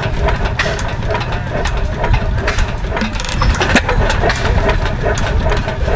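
Lauson single-cylinder hit-and-miss stationary gas engine running, with frequent sharp clicks from its firing and valve gear over a steady low drone.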